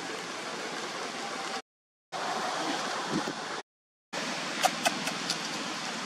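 Steady hiss of outdoor background noise, cut off twice by brief silences. About two-thirds through come three or four short, sharp, high sounds in quick succession.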